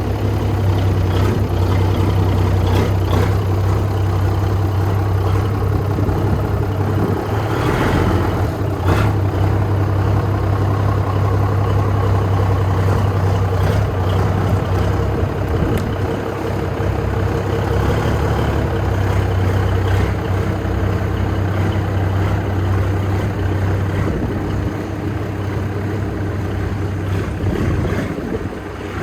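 Cummins diesel engine of a 1968 International Transtar 4070A cabover dump truck running steadily, with a strong, even low hum.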